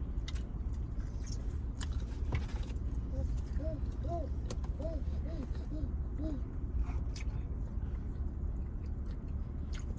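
Close-miked chewing of cornbread: soft mouth sounds broken by sharp wet clicks every second or two, over a steady low room hum.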